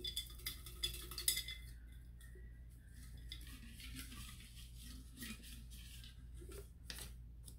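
Folded paper slips rattling and rustling inside a glass jar as it is shaken and turned by hand, with light clinks against the glass, busiest in the first second or so and again near the end.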